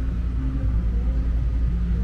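Outdoor street ambience dominated by a steady low rumble, typical of nearby vehicle traffic.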